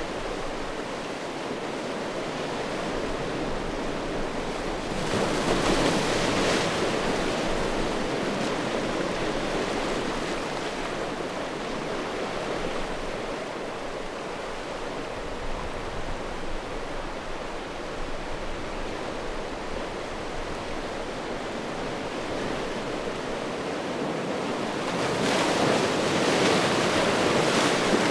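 Sea waves washing in over a beach of rounded stones, a steady rush that swells louder about five seconds in and again near the end as larger waves break.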